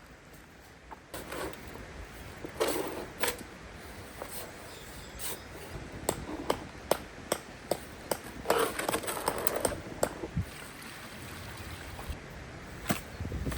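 Irregular sharp clicks and knocks with two longer scraping stretches, about two and a half seconds and eight and a half seconds in: cement and tools being handled to mix concrete.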